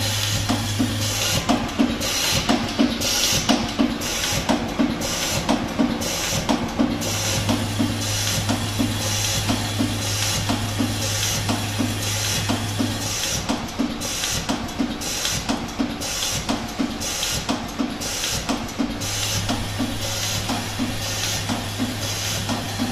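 Automatic-feed blind-rivet machine and its pneumatic rivet gun cycling about once a second, each cycle a short air hiss and clack, over a steady low hum that switches on and off.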